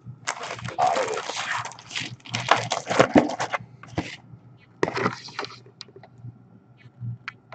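Clear plastic bag around a jersey crinkling and rustling in irregular bursts as it is handled and lifted out of a cardboard box, with a few small clicks near the end.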